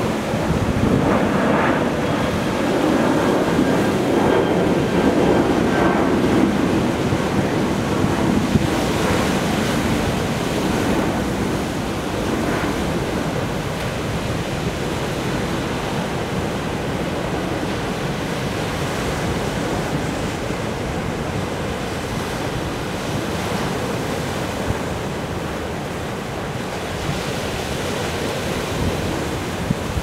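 Sea surf breaking and washing over black volcanic basalt rocks in a steady rush that is fuller in the first several seconds, with wind buffeting the microphone.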